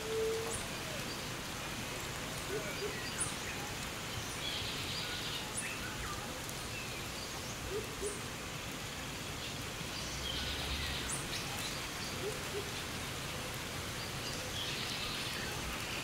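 Light rain falling steadily on forest foliage, with many short bird chirps and calls scattered over it and a brief low hoot right at the start. Forest insects buzz in three short high swells, about five seconds apart.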